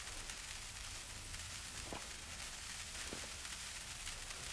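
The lit fuse of a firework cake sizzling with a steady hiss, with two faint knocks about two and three seconds in.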